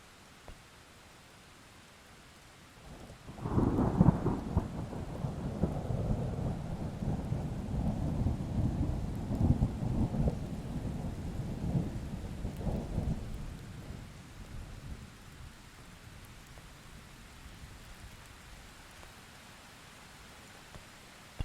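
Thunder over steady rain: a sharp thunderclap breaks about three and a half seconds in, then rolls on in deep rumbling surges for about ten seconds before dying away, leaving the soft hiss of the rain.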